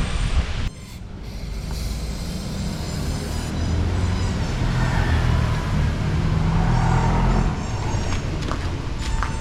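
Honda CB400 Super Four Revo's 399cc inline-four engine running through its stock exhaust, building steadily louder over several seconds and easing off near the end.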